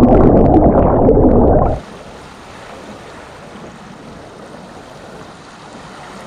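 Underwater churning and bubbling of river water as a mass of air bubbles rushes past the submerged camera, loud and deep for nearly two seconds. It then cuts off suddenly to a much quieter, steady rush of water.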